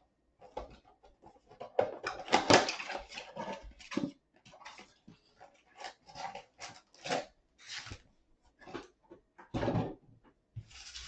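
Plastic shrink wrap and a cardboard blaster box crinkling and tearing as the box is opened. The noises are irregular, the loudest about two to three seconds in and another near the end.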